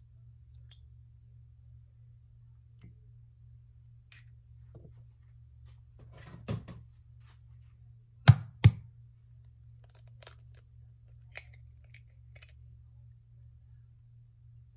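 Eggs being cracked and separated over glass bowls: scattered light clicks and taps of eggshell on glass, with two sharp knocks close together a little past halfway, over a low steady room hum.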